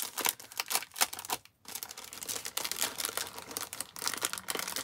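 Small clear plastic packet crinkling and rustling in quick irregular crackles as it is handled open and the flat paper stickers inside are pulled out, with a brief pause about a second and a half in.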